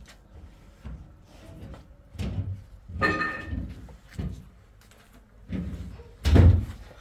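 A series of household knocks and thumps, about six of them, the loudest about six seconds in; one about three seconds in carries a brief high tone.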